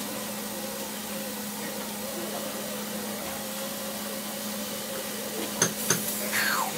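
Dentist office room tone: a steady hum and hiss of running equipment, with two sharp clicks near the end followed by a short falling whine.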